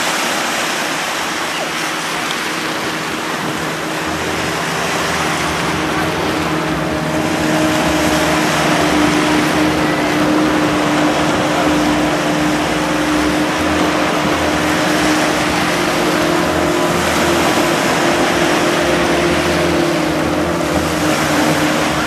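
Surf washing onto the beach with a motorboat engine droning steadily, the engine growing louder about four seconds in.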